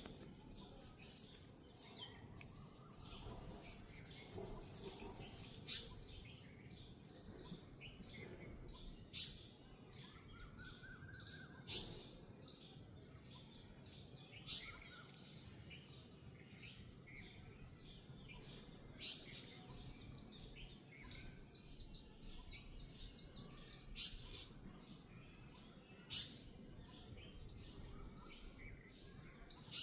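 Birds calling: a sharp high chirp repeated every few seconds, over a steady run of fainter, quicker chirps.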